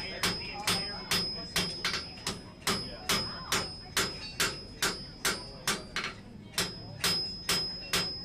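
Blacksmith's hammer striking hot steel on an anvil in a steady rhythm, about two to three blows a second, with the anvil's high ring lingering between blows.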